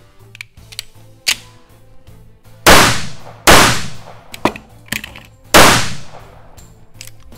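Wilson Combat Super Grade 1911 pistol fired three times on an indoor range, each shot with a short echoing tail: two shots less than a second apart, a pause of about two seconds with a few sharp metallic clicks, then a third shot. The pattern fits Wilson Combat's function test, in which the first two rounds are fired, the magazine is ejected, and the last round is fired.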